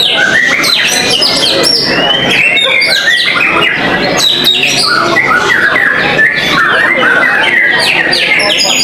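White-rumped shamas (murai batu) singing together in dense, overlapping phrases of rapid whistles and chirps, the full song of a contest session.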